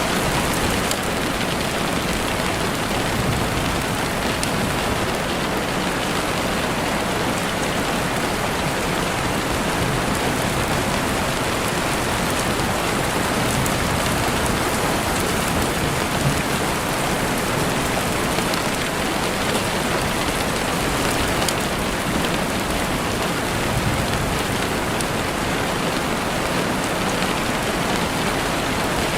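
Steady rain falling, a dense even hiss, with a few scattered sharp pops from a crackling campfire.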